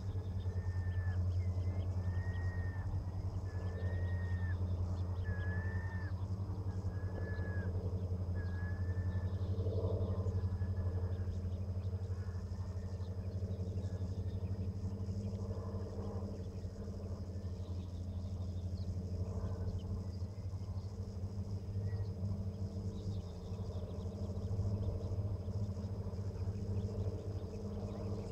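A bird calling over and over: a clear note that rises and falls, about every second and a half, fading out after about ten seconds. Under it runs a steady low rumble.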